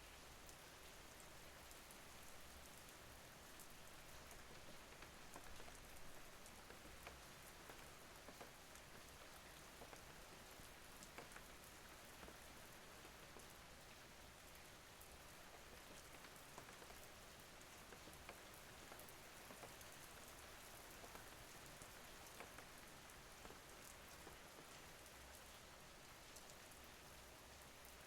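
Faint steady rain: an even hiss of falling rain with many small drop ticks scattered through it.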